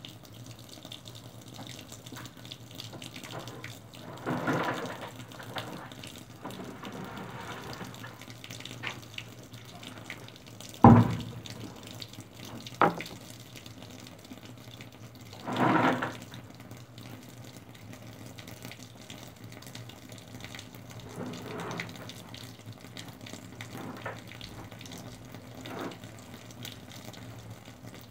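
Water running and splashing in a sink or washtub as laundry is washed, with a few louder splashes and a sharp knock about eleven seconds in.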